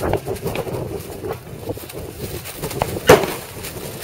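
Scattered gunshots from several shooters firing at once, some faint and some closer, with one loud, sharp shot about three seconds in.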